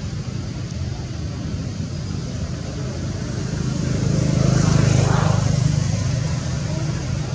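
Low engine rumble that grows louder, peaks about five seconds in, then eases off: a vehicle passing by.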